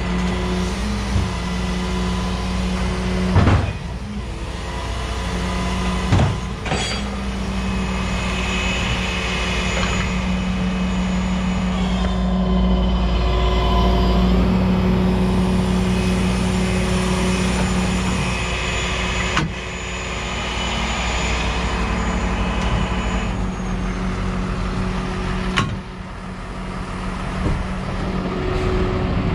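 Flatbed tow truck's engine running steadily, with a whine that comes and goes over the middle and four sharp metal clanks, two of them close together a few seconds in.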